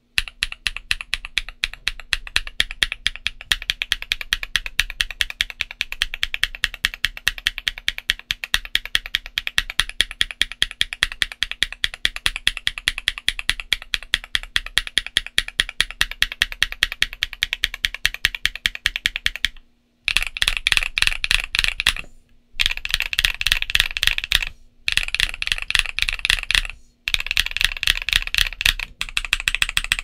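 Fast, continuous typing on a stock Portico68 BL mechanical keyboard with MMD Princess linear switches (53 g) and PBT dye-sub keycaps: a dense run of key strikes. It drops briefly to silence several times in the second half.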